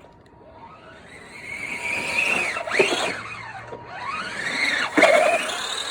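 Battery-powered RC car's electric motor whining up in pitch and falling back twice as the throttle is worked, with a sharp knock at the end of each run-up, about three and five seconds in.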